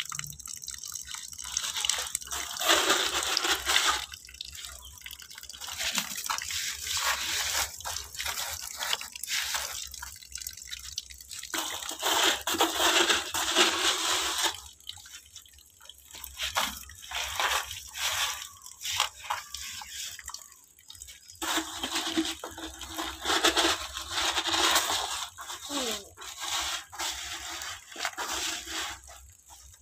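Water pouring and splashing in irregular stretches of a few seconds each, with quieter gaps between: a tap running into a bucket of filter media, and a plastic dipper scooping water from a bucket and tipping it out.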